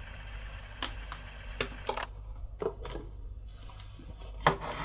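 Several sharp clicks and light knocks from a handheld recorder being switched off and handled, the loudest click near the end, over a steady low room hum.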